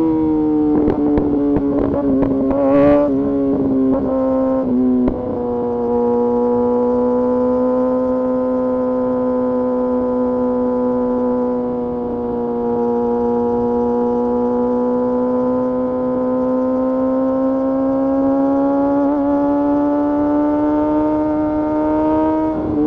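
Kawasaki Ninja ZX-6R's inline-four engine held at high revs while riding, a steady high engine note with wind rush. The pitch wavers with some knocks in the first few seconds, then holds almost constant, sagging a little and climbing slowly before it drops near the end.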